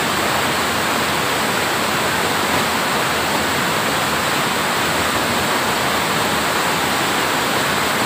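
Waterfall water rushing: a steady, even roar of falling water.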